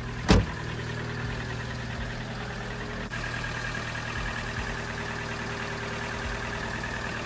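VAZ Lada Kalina petrol engine running in the cold with a diesel-like clatter (dieseling). A single sharp knock comes about a third of a second in, and a steady high whine joins about three seconds in.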